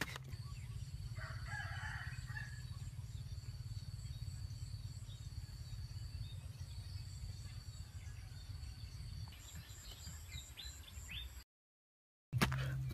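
A rooster crows faintly about a second in, over a steady low hum. The sound drops out briefly near the end, then comes back with a couple of sharp knocks of a digging tool striking the earth.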